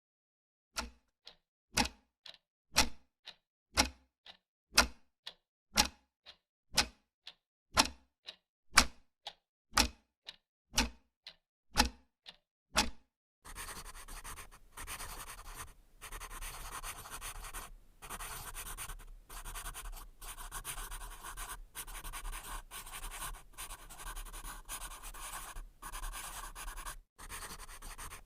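Pencil on paper: first a run of short, sharp pencil sounds, about one a second with fainter ones between, then, about halfway through, continuous scratchy writing with brief pauses.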